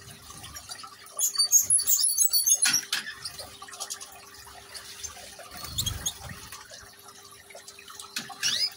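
Water trickling down a small decorative rock fountain, with a faint steady hum under it. Small birds, goldfinches among them, give a loud spell of quick high twittering about a second in and a few quick rising calls near the end, and there is a low thump about six seconds in.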